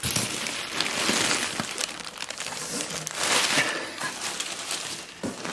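Plastic bag wrapping and crumpled packing paper crinkling and rustling as packages are handled and lifted out of a cardboard box, loudest at the start and again about three seconds in.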